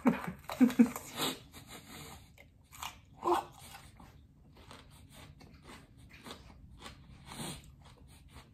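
A raw red bell pepper is bitten into and chewed with crisp crunches. The crunching is loudest and densest in the first second or so, with another loud crunch about three seconds in, then settles into fainter, steady chewing.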